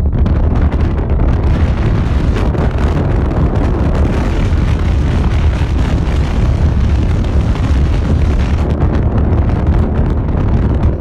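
Strong wind buffeting the microphone: a loud, steady, rumbling roar with gusty noise over it.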